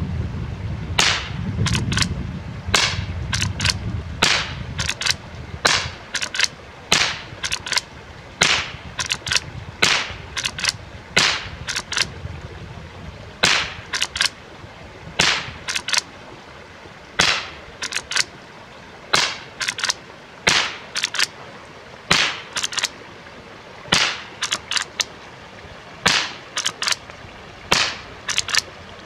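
Henry lever-action .22 rifle firing .22 Short rounds in a long string of sharp, light cracks, with the clack of the lever being worked between shots. The shorts feed and fire through the lever action without trouble.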